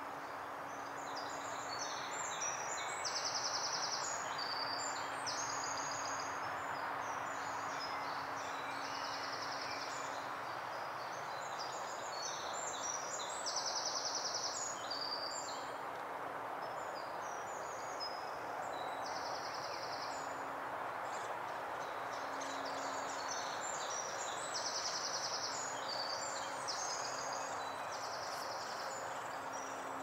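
Woodland songbird singing: long, fast, chattering phrases with rapid trills, coming in three bouts about ten seconds apart, over a steady background rush and a faint on-off hum.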